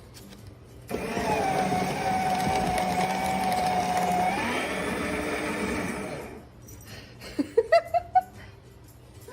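An electric motor appliance running steadily with a held whining tone, its pitch bending up about four seconds in before it shuts off, then a few short rising squeaks.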